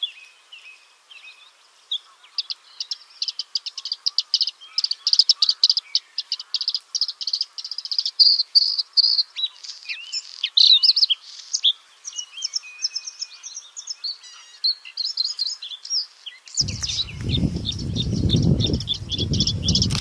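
Male bluethroat singing a fast, varied song of high chirps, trills and buzzy notes, with short breaks between phrases. Near the end a low rumble comes in underneath.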